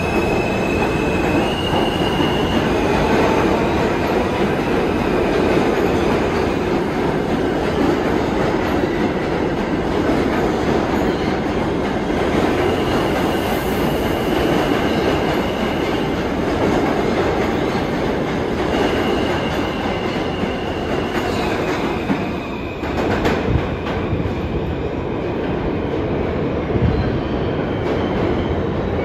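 New York City subway train running on the track, a steady loud rumble with high wheel squeal that rises and fades several times. One sharp clack from the rails about three-quarters of the way through.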